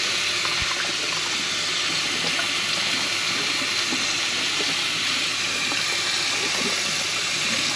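Kitchen tap running steadily into a sink, a constant rush of water.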